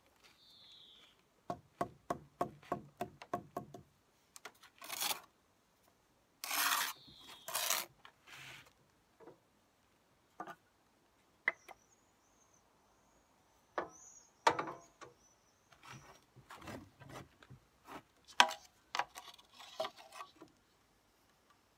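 Bricklaying by hand: a quick run of light taps as bricks are knocked down into the mortar bed, then a few loud rasping scrapes of a steel trowel on brick and mortar, and more scattered taps as the bricks are brought to a spirit level laid across the top.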